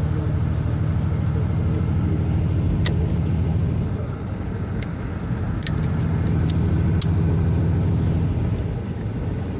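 Semi truck's diesel engine running, heard from inside the cab as a steady low drone with a thin high whine. The engine sound eases off briefly about four seconds in and again near the end, and the whine falls away each time. A few light clicks come from the cab.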